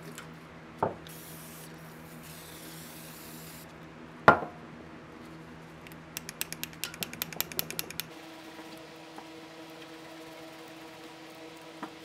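Needle-nose pliers being handled: a light knock, then a sharp knock a few seconds later, then a quick run of small metal clicks for about two seconds, over a steady low hum. A brief hiss comes between the first two knocks.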